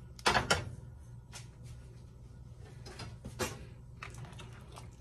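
A metal cooking pot set down on a gas stove's grate with two quick clunks just after the start, followed by a few lighter knocks of a spoon against the soup pan as it is stirred.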